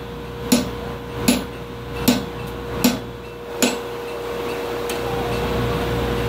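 Five even hammer blows on steel at the anvil, about one every 0.8 seconds, each with a short metallic ring, as a railroad spike is marked and cut from its other side. A steady background hum runs beneath and grows a little louder after the last blow.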